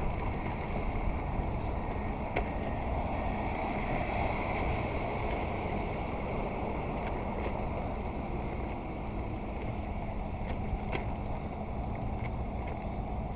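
Steady street traffic rumble heard on a walk past a construction zone, with a few faint clicks and a low hum underneath.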